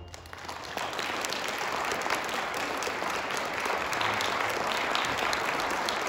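Audience applauding, a dense patter of many hands that builds within the first second and then holds steady.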